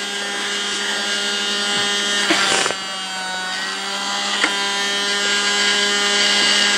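Toy bubble machine's small electric motor and fan running with a steady buzzing whine while it blows bubbles. There is a brief hiss about two and a half seconds in.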